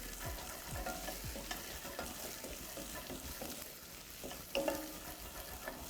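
Diced onion, garlic, bay leaf and lemon zest sizzling in olive oil in a pot over medium-high heat, a steady frying hiss while the garlic softens.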